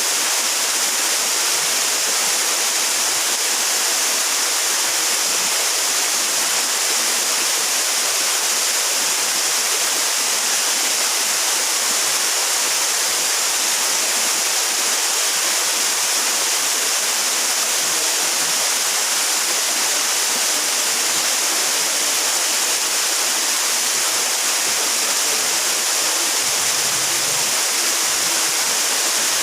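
Waterfall: a steady, hissing rush of falling water that does not change.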